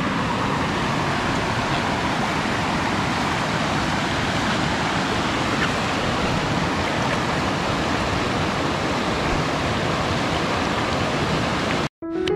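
Stream water rushing steadily, a constant even hiss that cuts off suddenly near the end.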